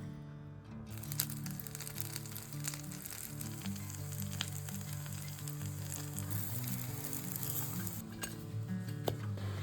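Banana-oat pancake batter sizzling in a lightly greased frying pan, with small crackles. The sizzle starts about a second in and drops out briefly near the end. Background music plays underneath.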